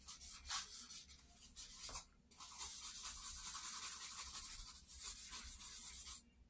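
A hand rubbing charcoal into drawing paper to blend it. A few short strokes come first, then after a brief pause a steady, brisk rub of about four seconds that stops suddenly near the end.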